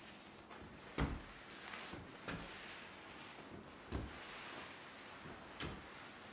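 Four dull thumps at uneven intervals, the one about a second in the loudest, with a rustling hiss between them. They come from a performer moving with a tape-wrapped bag hung from chains on his wrists.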